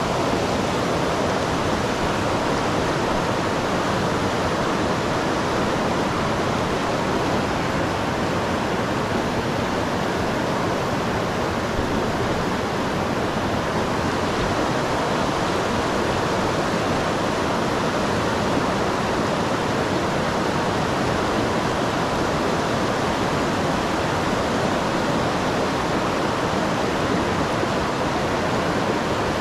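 Shallow, rocky mountain river rushing over stones and through riffles: a steady, even rush of water.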